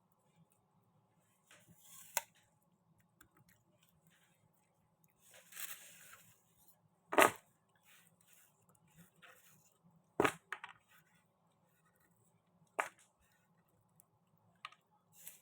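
Scattered clicks and knocks of objects being handled, with two loud knocks about seven and ten seconds in and a brief rustling noise a little before the first.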